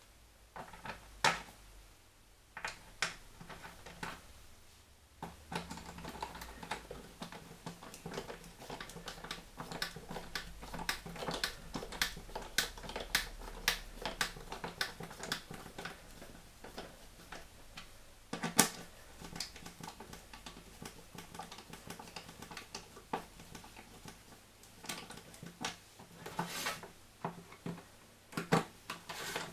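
Irregular light clicks and taps of a screwdriver and plastic parts as screws are fitted into a washing machine door's catch and hinge, with one sharper knock about two-thirds of the way through.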